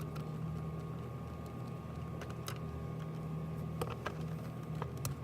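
Cordless drill/driver motor running steadily, backing out the screws of a truck center-console lid, with a few sharp clicks about four and five seconds in.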